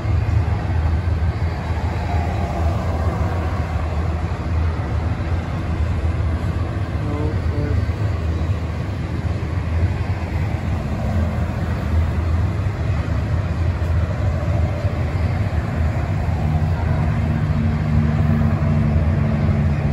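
Double-stack intermodal freight train rolling past, its well cars giving a steady, loud low rumble of wheels on rail. A car's engine joins in near the end as it drives by close in front.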